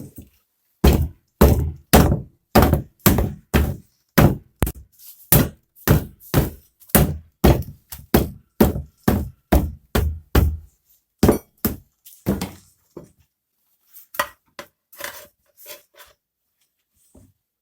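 Hammer tapping the tire onto the rim while fitting a tire to a Dnepr/Ural motorcycle wheel: a run of about two dozen thunks, about two a second, easing the bead over the rim edge. It stops about two-thirds of the way through, followed by a few light knocks.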